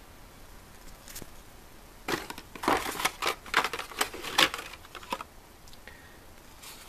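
Carded Hot Wheels blister packs, plastic bubbles on cardboard backing, crinkling and clacking against each other as a stack is handled and lifted. There is a single click about a second in, then a quick run of crinkles and scrapes lasting about three seconds.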